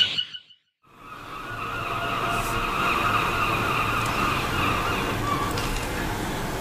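Car tyres screeching in a long skid, fading in after a second of silence and then holding steady, with a low rumble of the car underneath.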